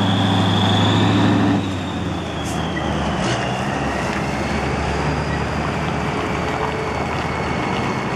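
Diesel engine of an old cab-over truck pulling a drawbar trailer, running steadily as it drives slowly past, with a high whistle that rises and then falls. About a second and a half in the engine sound drops as the truck moves away, leaving a quieter steady engine sound.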